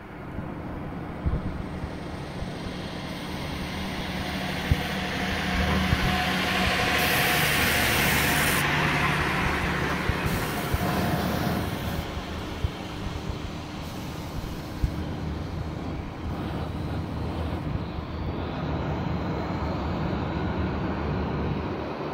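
Jet airliner engines running as the aircraft moves along the runway, a steady rushing sound over a low rumble. It swells to its loudest about eight seconds in, then eases off without dying away.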